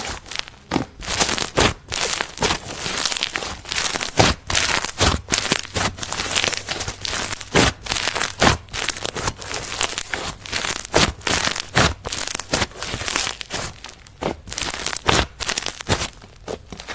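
Hands squishing and kneading slime close to the microphone, a dense run of irregular clicks and pops, several a second.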